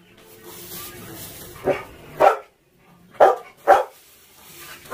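Dog barking: about five short, sharp barks, mostly in pairs about half a second apart.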